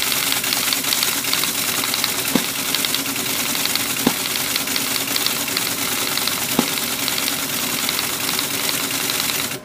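Teletype Model 33 ASR printing: rapid mechanical clatter of characters being struck onto the paper over the running machine, with a few heavier knocks along the way. It stops suddenly at the end.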